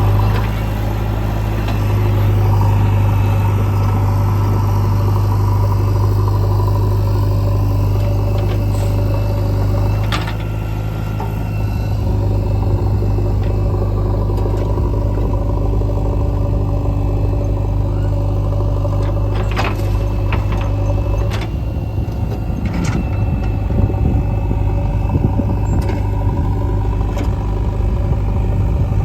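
Diesel engine of a backhoe loader working, running steadily while it loads murum into a tractor trolley. A few sharp knocks stand out over it, the loudest about 23 seconds in.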